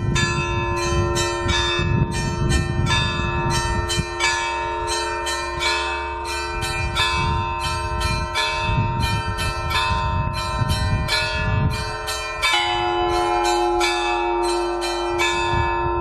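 Orthodox church bells ringing a festive peal: small bells struck rapidly and unevenly, about three strikes a second, over the sustained hum of larger bells. A deeper bell rings out more strongly about twelve seconds in.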